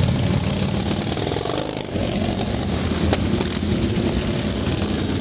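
Motorcycle engines running in a steady, dense din of low engine rumble.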